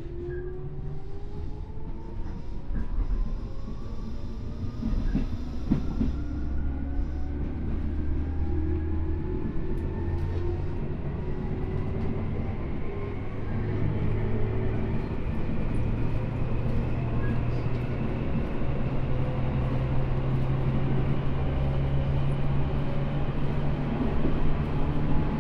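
Tobu 10000 series field-chopper-controlled electric train heard from inside the passenger car as it accelerates. The traction motor and gear whine rises steadily in pitch over the rumble of the wheels on the rails, which grows slowly louder.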